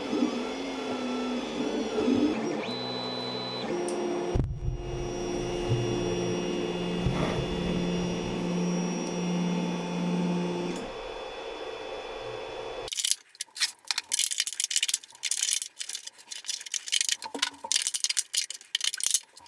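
Creality CR-10 S5 3D printer's stepper motors whining in steady tones that jump in pitch as the print head moves. About two-thirds of the way through this gives way to rapid, irregular crackling and snapping as pliers break plastic support material off the finished PLA print.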